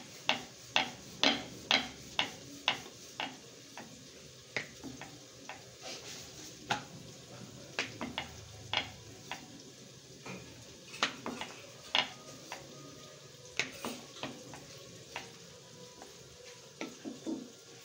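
Sharp wooden taps and knocks from rolling out roti with a rolling pin on a wooden board, with the dough handled between rolls. A quick run of taps, about two a second, in the first few seconds, then scattered knocks.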